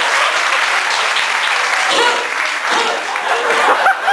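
Audience clapping steadily, with a few voices calling out over the applause from about halfway in.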